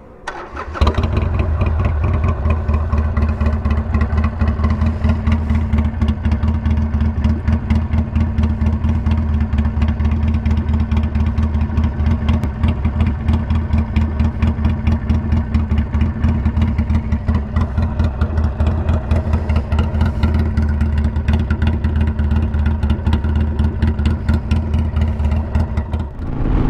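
Harley-Davidson Iron 883 Sportster's air-cooled V-twin running steadily through a Two Brothers Racing Comp S stainless 2-into-1 exhaust, with a bassy tone that is not sharp or raspy. The sound starts suddenly just under a second in.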